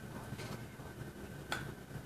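Quiet room tone with a faint steady high whine and a single light click about one and a half seconds in.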